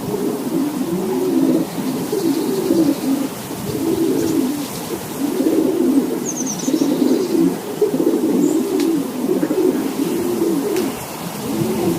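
Racing pigeons cooing continuously, several birds' low rising-and-falling coos overlapping one after another.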